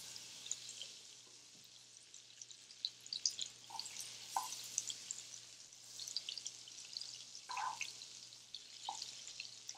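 Butter pats melting in hot olive oil in a skillet, sizzling quietly with small irregular crackles and pops as tongs push them around.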